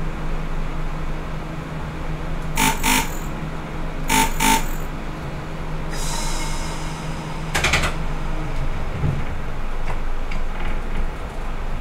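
Class 122 diesel railcar under way: a steady engine hum, with the wheels knocking over rail joints in quick pairs three times. A burst of hissing air starts about six seconds in and fades, and the engine hum drops away near the end.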